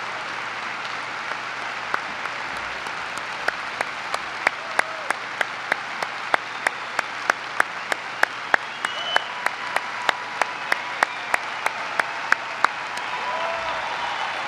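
Large audience applauding, a steady wash of clapping. From about three seconds in until near the end, sharp claps about three a second stand out above it.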